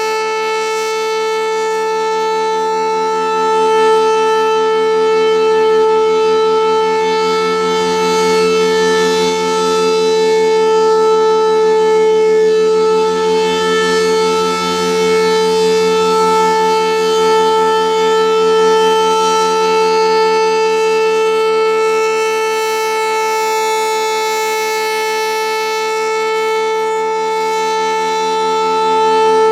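Federal Signal Thunderbolt 1000A warning siren with a single-tone chopper, sounding its Alert signal: one steady, unwavering tone that swells and eases slightly in loudness.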